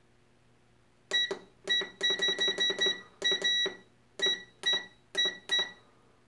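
Air fryer's touch control panel beeping with each button press: about a dozen short beeps of one pitch, starting about a second in, with a quick run of them in the middle. This is the cooking time being stepped up.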